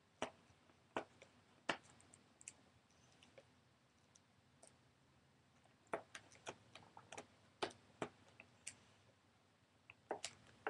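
Faint, scattered sharp clicks and taps of hands picking at a cardboard box and its tape, coming in three short clusters.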